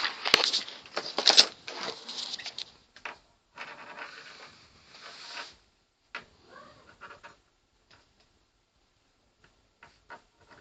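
A pencil clattering and scratching on a hard surface as a cat plays with it: a dense flurry of taps and scrapes for the first couple of seconds, a short scratchy rustle, then scattered single taps.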